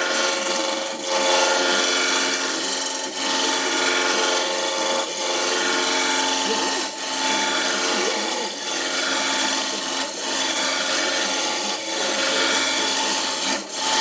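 Wood lathe running with a wooden spindle being worked by hand as it spins: a steady motor hum under a rasping rub of wood, with brief dips about every one and a half to two seconds as each pass ends.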